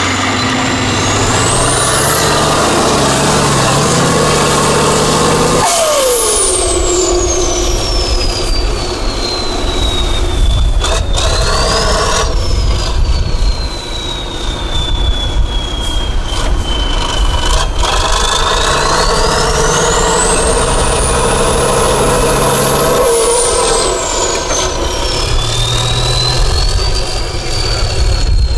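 Tatra 6x6 trial truck's turbocharged diesel engine working hard under load, its revs rising and falling. A high turbo whistle climbs and sinks with them several times.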